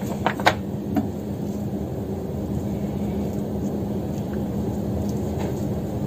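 Steady low hum of a running appliance motor with a constant low tone, and a few light clicks in the first second as a spoon works filling from a bowl.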